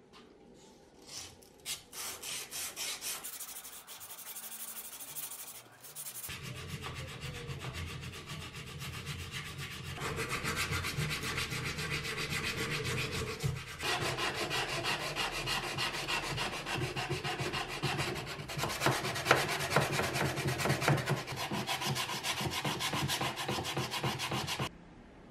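Sandpaper rubbing rust off the steel of an antique French adjustable wrench, partly wrapped round a wooden block, in quick back-and-forth strokes that stop suddenly near the end.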